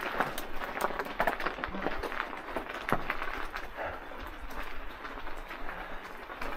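Crunching over snowy ground: a quick, irregular run of crunches and clicks with a steady hiss behind it.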